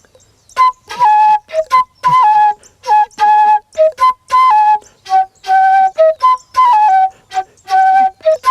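A single flute playing a melody in short phrases, with brief gaps between notes. It steps back and forth among a few pitches, a high note dropping to a lower held one again and again.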